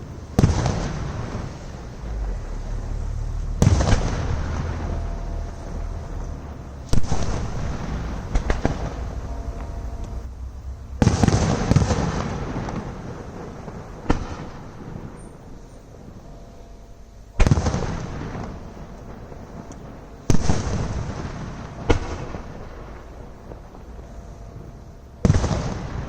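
Aerial fireworks shells bursting: about eight heavy booms a few seconds apart, each trailing off in a long rumbling echo, with a quick cluster of extra bangs near the middle.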